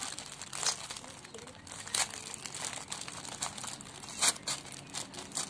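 Plastic wrapper of a sanitary pad pack crinkling and tearing as hands pull it open, irregular rustling with a few sharper crackles, the loudest about two seconds in and just after four seconds.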